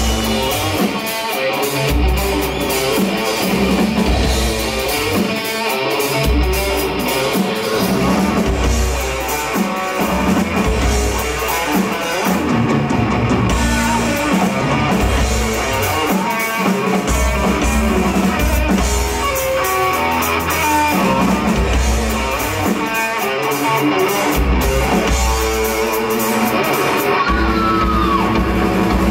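Live instrumental rock: an electric guitar playing a fast lead over a drum kit.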